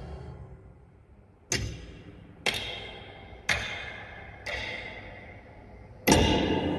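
Film soundtrack sound effects: five heavy, echoing clunks about a second apart, each ringing out, the last one loudest, heard over the planetarium dome's speakers.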